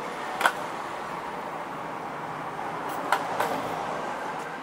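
Clear plastic lure boxes clicking as they are handled: one sharp click about half a second in and a quick run of clicks a little after three seconds. Under them is a steady background hiss, like traffic noise.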